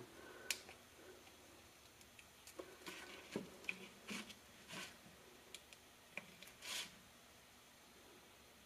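Faint, scattered clicks and short scrapes of a cast silicone mask in its 3D-printed plastic mold being handled and trimmed with a razor blade, the longest scrape near the end.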